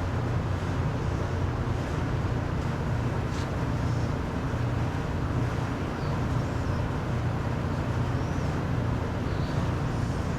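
Steady low droning background noise at an even level, with a single faint click about three and a half seconds in.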